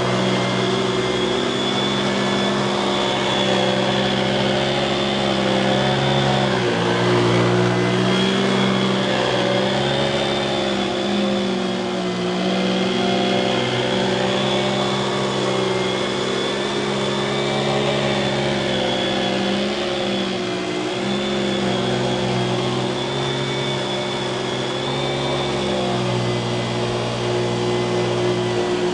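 Canister vacuum cleaner's dual-stage Lamb motor running steadily, a low hum with a faint high whine over it, its pitch shifting slightly now and then, about 7 seconds in and again near the end.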